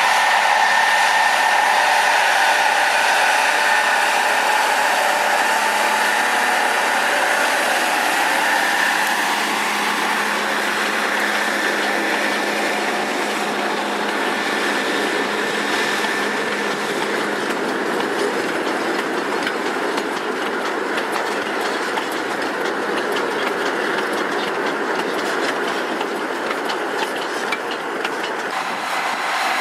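Queensland sugar cane train running on its narrow-gauge tramway: a steady rolling noise of wheels on rail, with clicking growing more prominent in the second half.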